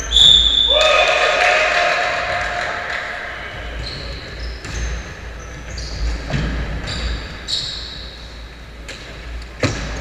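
Basketball game sounds in a gym: a short ringing tone right at the start as a shot goes up, followed by a loud shout lasting about two seconds. Shoe squeaks on the wooden floor come and go throughout, and the ball bounces sharply twice near the end.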